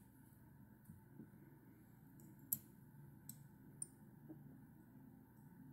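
Near silence with about five small, sharp clicks, the loudest about two and a half seconds in, from fly-tying tools being handled at the vise.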